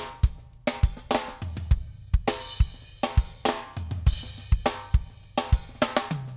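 Background music driven by a drum kit: a steady beat of kick and snare hits with cymbals and a bass line.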